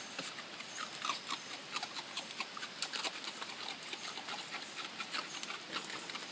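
A group of raccoon-like animals making many quick, high chirps and squeaks, mixed with short clicks.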